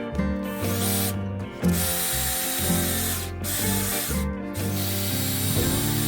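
Power drill running in several long bursts with short pauses between, pre-drilling holes and driving stainless trim screws into thin maple parts. Background music plays underneath.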